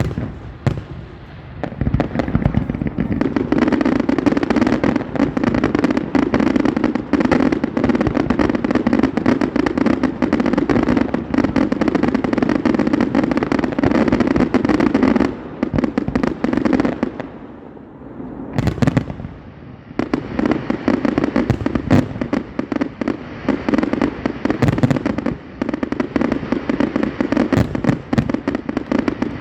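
Fireworks display: a dense, continuous run of pops, bangs and crackling, with brief lulls about a second in and a little past the halfway point.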